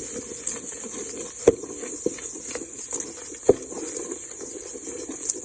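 Cookie dough being mixed by hand in a bowl: steady scraping and stirring, with a few sharp knocks of the utensil against the bowl.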